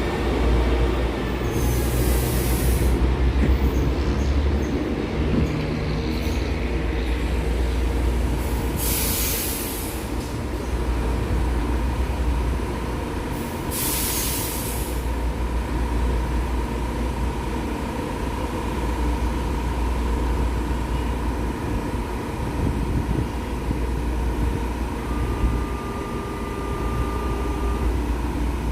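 São Paulo Metro train running at the platform: a steady low rumble, three short hisses of air, and a steady whine from about a third of the way in.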